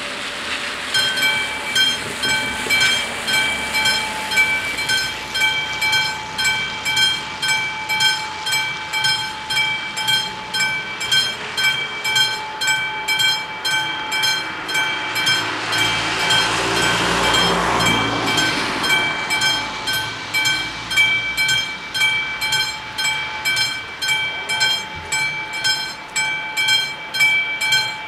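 Two level-crossing warning bells of an AŽD 71 crossing start ringing about a second in, struck about twice a second, signalling an approaching train. About two-thirds of the way through, a passing road vehicle swells up and fades under the bells.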